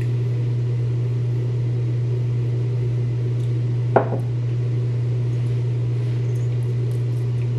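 A loud, steady low hum with a single short knock about four seconds in.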